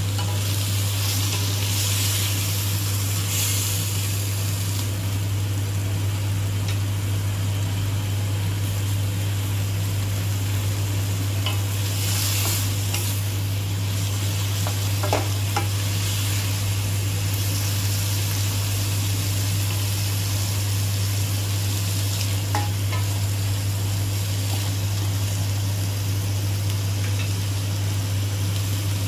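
Tiger prawns sizzling in hot oil in a stainless steel wok as they are stir-fried with a wooden spatula, with a few light taps of the spatula. The sizzle swells twice, and a steady low hum runs underneath.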